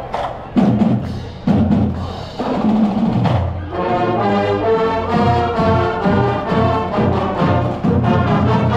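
High school marching band passing: the drumline plays a cadence of bass-drum beats and sharp clicks, and about four seconds in the full band comes in playing a tune over the drums.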